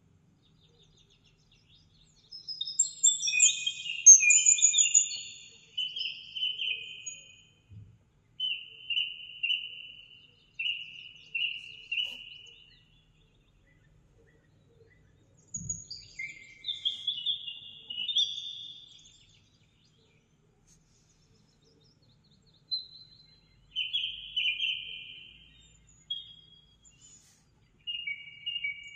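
A songbird singing: short phrases of quick high chirps and trills, repeated with brief gaps and a longer pause about halfway through.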